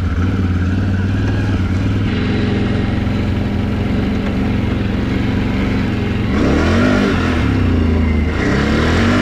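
Can-Am Renegade XMR 1000 ATV's V-twin engine running at a steady low speed on the trail, then revving up and back down twice in the last few seconds.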